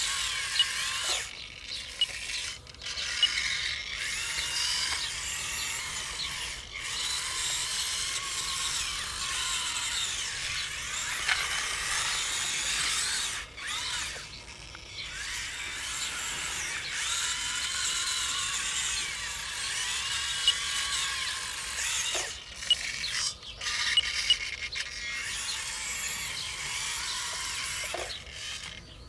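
Small electric motors and gearboxes of RC scale construction models whining as they drive and work, the pitch rising and falling with the throttle, with several brief stops and a few sharp clicks.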